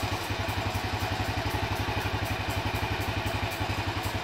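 SYM Bonus X underbone motorcycle's single-cylinder four-stroke engine idling steadily, with a rapid, even beat.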